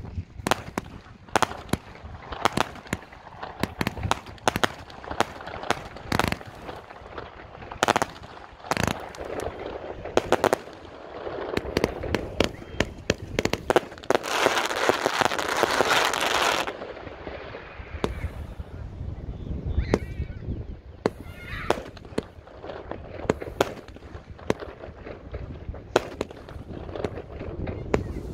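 China Red High Kick 144-shot fireworks cake firing: a long irregular run of launch thumps and shell bursts, with a dense stretch of hiss about halfway through.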